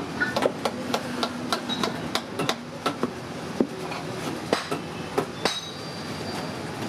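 Sharp, irregular knocks and taps, a few per second at times, over steady background noise, with a brief high ring about five and a half seconds in.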